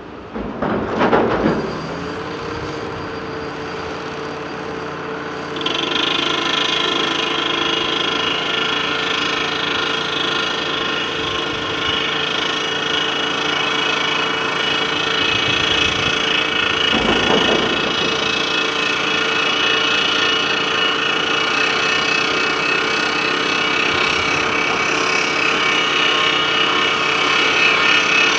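Rock from a Hitachi ZX350 excavator's bucket crashes into the steel bed of a Bell B45E articulated dump truck about a second in. After that the diesel engines and hydraulics of both machines run steadily. About six seconds in the machine noise steps up louder with a higher whine, and a second, softer crash of rock comes a little past halfway.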